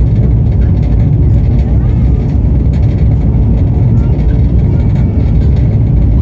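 Passenger train running steadily, heard from on board: a loud, even low rumble with no breaks.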